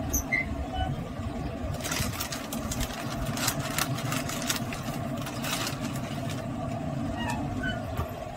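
Pellet smoker running with its lid open: a steady fan hum over a low rumble, which drops away as the lid is shut near the end with a light clunk.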